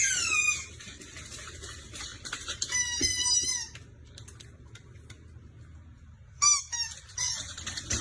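High-pitched squeaky cries from a small animal, each falling in pitch: one at the start, a run of short cries about three seconds in, and a loud one about six and a half seconds in.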